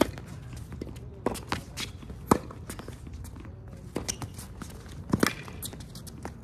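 Tennis balls being struck and bouncing on a hard court, with players' footsteps: a string of sharp, irregular knocks, the loudest about one, two and five seconds in.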